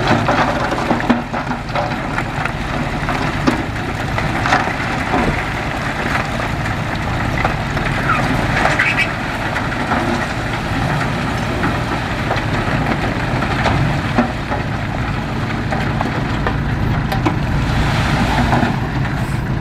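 Heavy earthmoving machine's diesel engine running steadily, with scattered knocks and clanks.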